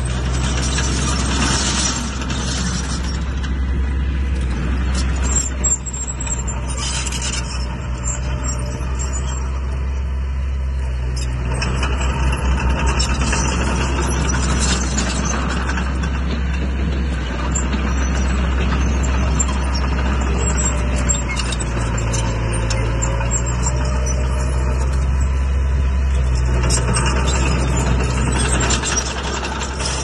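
Heavy diesel earthmoving machinery running steadily, with scattered metallic clanks and squeaks over the engine's low hum.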